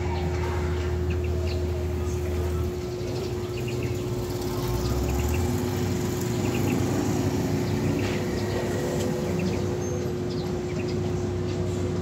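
Heavy road-construction machinery running steadily with a constant hum and low rumble. A motorcycle passes about halfway through, and birds chirp throughout.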